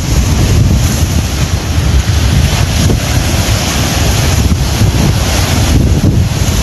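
Strong wind buffeting the microphone in a continuous low rumble, over the rushing of small waves breaking on a lagoon shore.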